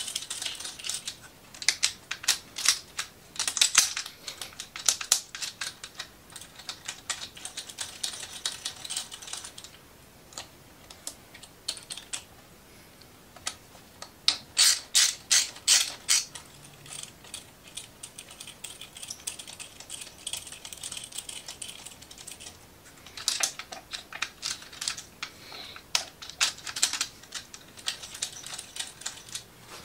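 Socket ratchet wrench clicking in quick runs of rapid clicks, with short pauses between runs and a quieter stretch about ten seconds in, as bolts inside an Audi DL501 dual-clutch transmission housing are turned.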